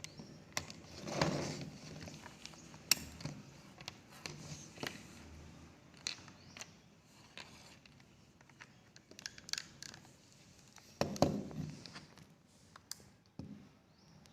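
Handling of crimped RJ-45 network cable plugs as they are plugged into a LAN cable tester: scattered small clicks and knocks, with louder bumps and scraping about a second in and again about eleven seconds in.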